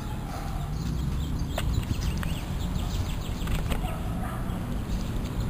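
Dry leaf litter rustling and crackling with scattered sharp clicks as a dog moves about in it, over a steady low rumble on the microphone.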